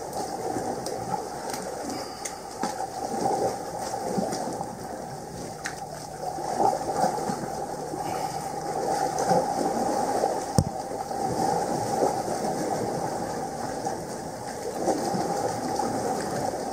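Sea water washing and sloshing against a rocky shore, a steady rushing noise, with one sharp knock about ten seconds in.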